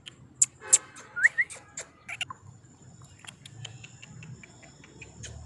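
Small birds chirping: scattered short, sharp chirps and a pair of quick rising squeaks about a second in, over a low steady hum.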